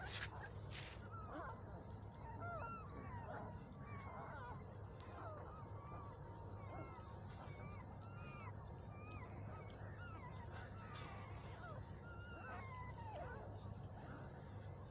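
A litter of young puppies squeaking and whimpering while suckling: many short, high squeaks that bend up and down in pitch, over a low steady hum.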